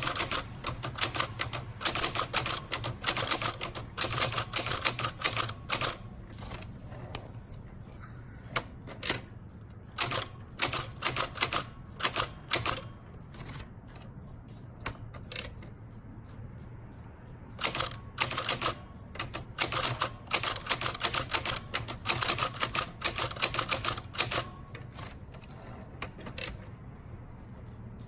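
Typewriter keys being struck in quick runs of clicks, broken by pauses of a second or more, as a poem is typed out. A low steady hum sits underneath.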